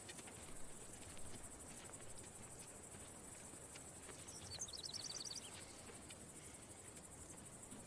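Natural ambience: a steady, high-pitched insect chorus, with a bird's quick trill of about eight short notes a little past halfway.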